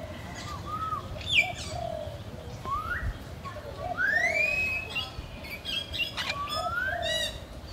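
Animal calls in the trees: short chirps, a repeated low note, and several whistled calls that rise in pitch. The longest and loudest rises about four seconds in.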